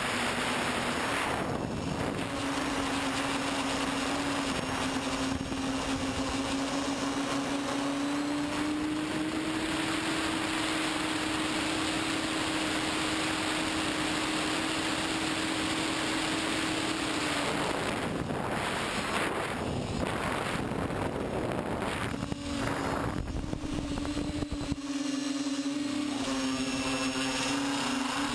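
TBS Discovery quadcopter's brushless motors and propellers buzzing in flight, heard from the onboard camera, over a steady rush of air across the microphone. The hum rises a little in pitch about a third of the way in, holds, then breaks up with throttle changes around two-thirds in before settling back.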